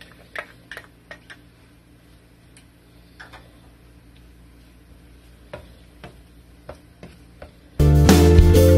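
Metal spoon clicking and scraping against a small stainless steel saucepan as minced ginger and garlic are stirred in hot oil, over a faint sizzle; the ticks come irregularly, a few at a time. Loud background music with drums and guitar cuts in near the end.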